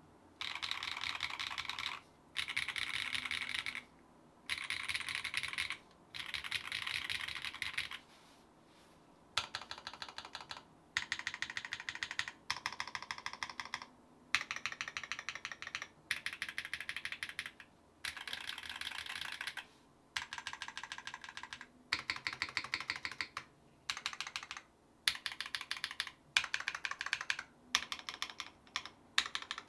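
Geonworks Glare 65 mechanical keyboard with BSUN BCP switches, a carbon fibre plate and GMK Striker R2 keycaps, typed on fast. The keystrokes come in runs of a couple of seconds with short pauses between them, and the runs grow shorter and choppier in the last third.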